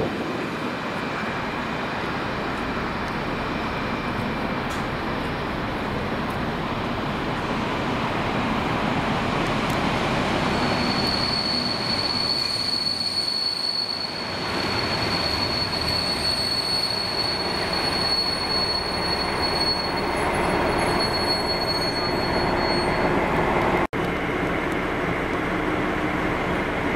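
Two coupled DB class 215 and 212 diesel locomotives running past, their engines and wheels making a steady rumble. A steady high-pitched wheel squeal from the rails sets in about ten seconds in and fades out about twelve seconds later. The sound cuts out for an instant near the end.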